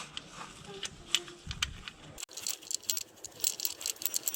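Light metallic clicks and clinks of hand tools on an engine belt-pulley bolt as the old bolt is being undone. The clicks come sparsely at first and grow quicker and denser in the second half.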